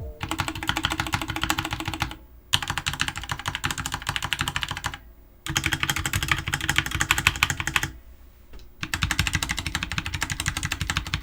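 Stabilized keys on a Dierya DK63 60% keyboard with soldered Outemu red switches, tapped rapidly in four runs of a few seconds each with short pauses between. The stabilizers are factory-lubed but still rattle, though not the worst.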